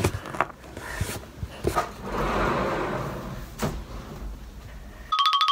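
Scattered knocks, then a sliding closet door rolling along its track for about a second, ending in a sharp knock. About five seconds in, a fast run of electronic beeping tones starts and is the loudest sound.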